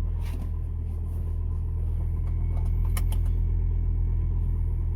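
Ford Focus ST225's turbocharged 2.5-litre five-cylinder engine idling steadily while it warms up, with a few sharp clicks about three seconds in.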